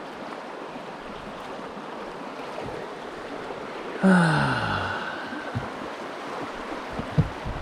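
River water rushing steadily around a rubber raft stuck on a rock in shallow rapids. About four seconds in comes a loud, short sound that falls in pitch, and a knock follows near the end.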